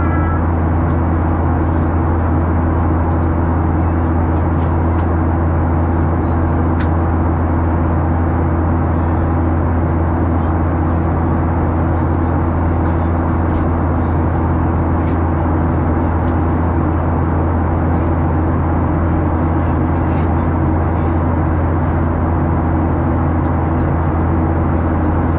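Boeing 737 cabin noise in flight: the engines and the rushing airflow make a steady loud drone with a strong low hum and a couple of steady higher tones, unchanging throughout.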